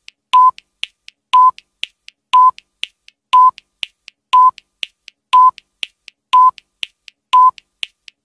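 Countdown timer sound effect: a short, sharp beep once a second, eight in all, with three fainter clicks between each pair of beeps.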